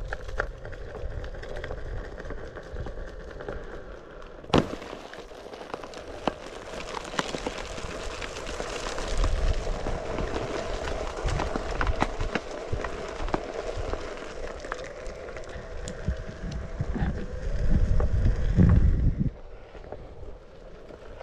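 Self-balancing one-wheel electric skateboard being ridden: a steady hum with dense crackling and popping as the tyre rolls over wood chips, one sharp crack about four and a half seconds in, and wind buffeting the microphone that rises near the end and then drops off.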